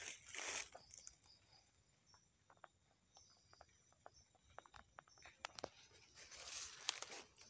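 Dry leaf litter rustling and crunching underfoot, a short burst at the start and a louder stretch near the end, with faint scattered ticks in the quiet between.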